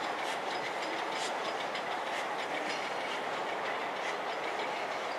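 Steam locomotive LMS Jubilee Class 45699 'Galatea' and its support coach running away along the track. Its wheels click over the rail joints and pointwork about once a second over a steady rush of noise, and the clicks grow weaker in the second half.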